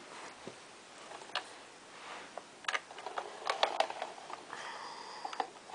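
Scattered light clicks and ticks, a few single ones and then a quick cluster, in a pause in the toy's music; a faint high tone comes in near the end.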